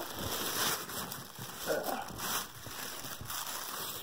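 Cellophane gift wrap on an Easter basket crinkling and crackling as it is handled and pulled at, in irregular bursts.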